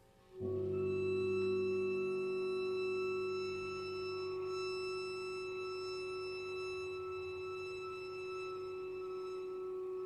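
Contemporary chamber trio music (violin, clarinet, piano) entering suddenly about half a second in: one long, steady held note, with lower notes sounding at the same moment that die away over the next few seconds.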